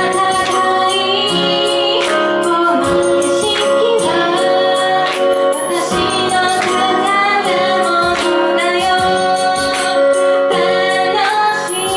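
A woman singing a pop song live over full instrumental accompaniment with a steady beat.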